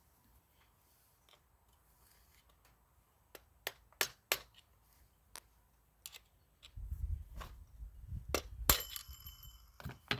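Hand tools clicking and knocking on a chainsaw as its clutch is worked off: a few sharp separate clicks, then a stretch of low rumbling knocks, and one loud metallic clank near the end that rings briefly.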